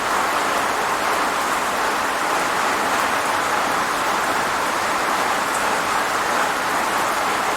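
Steady rain falling, an even, unbroken hiss with no single drops or thunder standing out.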